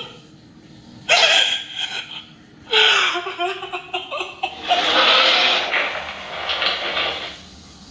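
A person sobbing and crying out in grief, in three long, breathy wails with falling pitch.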